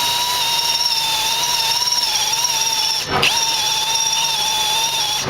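Electric drill boring a hole through the steel truck chassis, its motor whining at a steady high pitch. The whine briefly drops out and picks back up about three seconds in and again near the end, as the trigger is let off and squeezed again.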